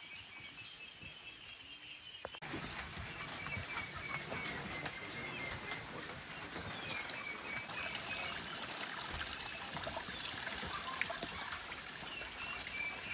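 Outdoor ambience of trickling water, with birds chirping over it in short, repeated high calls; the level steps up sharply about two seconds in.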